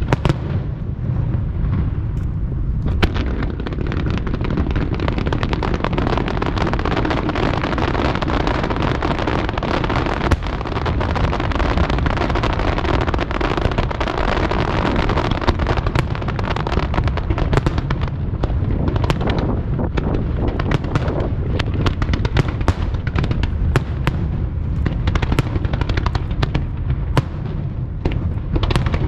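Fireworks barrage, with aerial shells bursting in rapid, overlapping booms over a continuous low rumble and many sharp crackling reports. The crackles come thicker and faster in the second half.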